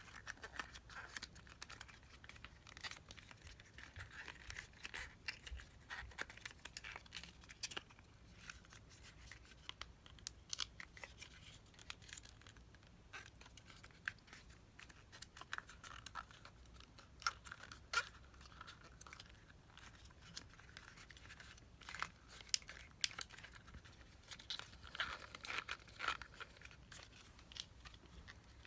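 Irregular light clicks and crinkling, rustling handling noises, as of small parts or packaging being worked by hand at a bench.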